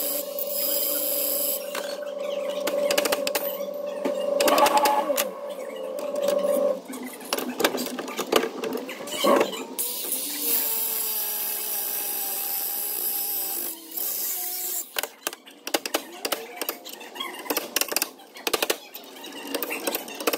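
Sped-up workshop audio of a rear axle bearing being cut off and knocked loose. A cutoff wheel gives a steady high whine for the first several seconds, then come rapid metallic clicks and knocks.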